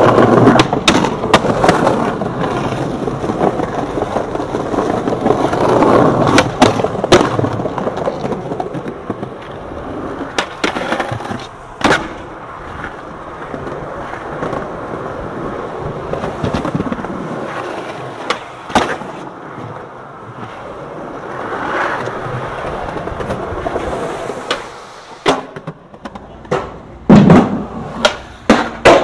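Skateboard wheels rolling on concrete, broken by sharp cracks of the board popping and landing. Near the end comes a run of the loudest slaps and clatters.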